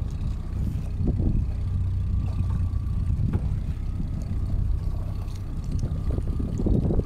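Small boat's outboard motor running steadily under way, a low drone with a faint steady whine above it, and some wind buffeting on the microphone.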